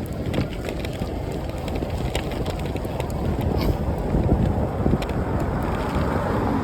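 Wind buffeting the microphone over a steady low rumble of riding, with a few faint clicks.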